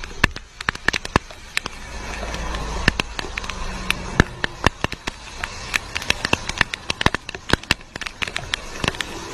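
Rapid, irregular sharp clicks and crackles over a steady rush of wind and road noise from a moving motorcycle on a wet road, with a low rumble swelling about two seconds in and easing off after four.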